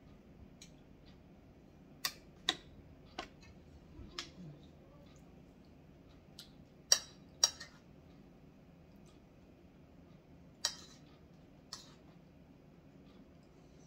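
Spoon and utensils clicking against a bowl and plate while eating: scattered sharp clicks several seconds apart, the loudest two coming close together about halfway through.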